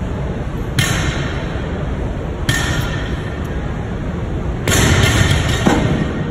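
Steady gym background noise with several sharp clinks and knocks of metal gym equipment, the loudest a longer clattering stretch from about two-thirds of the way through, one with a brief ringing tone.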